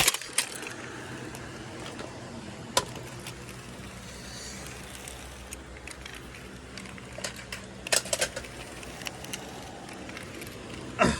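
Steady low engine and road hum inside a moving car, with a few sharp clicks and knocks, the loudest about three seconds in and a cluster about eight seconds in.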